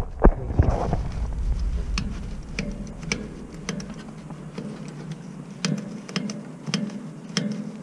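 Hydraulic bottle jack being pumped under a vehicle to raise a fuel tank: a sharp knock near the start, then a run of small metallic clicks and knocks, roughly two a second.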